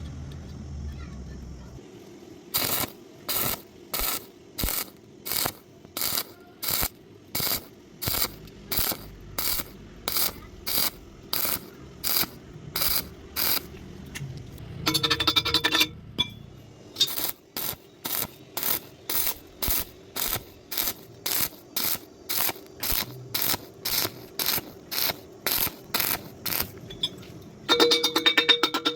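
Welding arc struck in short repeated bursts, about one and a half a second: stitch welding that fills in a defective cavity in thin metal. Twice the arc is held for about a second, once midway and once near the end.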